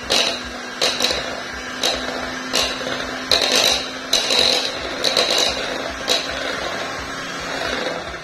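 Electric hand mixer whirring as its beaters cream butter and margarine, the beaters clicking against the bowl about once a second. The motor cuts off near the end, once the mixture is creamy.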